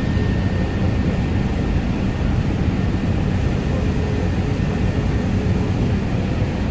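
Cabin noise of an Airbus A380-842 on its takeoff roll: the Rolls-Royce Trent 900 engines at takeoff thrust together with the rumble of the wheels on the runway, a loud, steady, deep roar.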